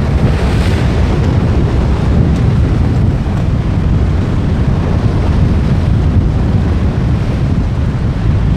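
Strong gusty wind buffeting the microphone in a steady low rumble, over the wash of heavy swell breaking on the shore rocks.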